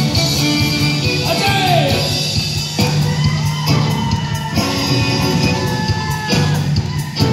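Live band playing an up-tempo folk-rock number on fiddle, acoustic guitar, accordion and drums, with shouts and whoops over the music.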